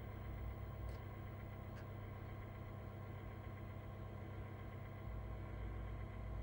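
Steady low hum of room tone, with two faint small clicks about one and two seconds in.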